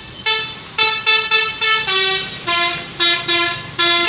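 Telolet horn, the multi-tone musical air horn fitted to Indonesian buses, playing a quick melody of short, loud notes that step up and down in pitch, about ten notes in all.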